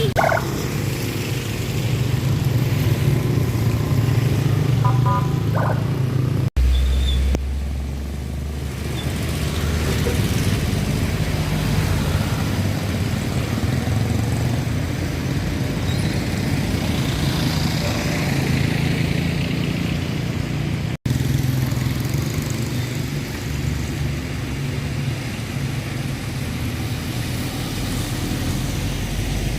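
Steady road traffic: motorcycles and cars running past with a continuous engine rumble, broken twice by abrupt cuts.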